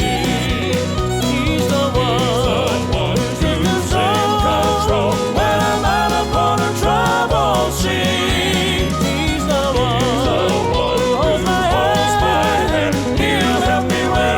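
Background music: a country-gospel song, with a wavering melody line over steady bass.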